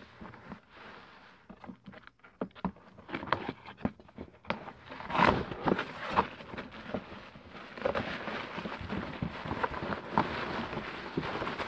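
Cardboard box being opened and handled, with scraping flaps and short knocks. From about eight seconds in, crinkly plastic wrapping rustles as the wrapped item is pulled out.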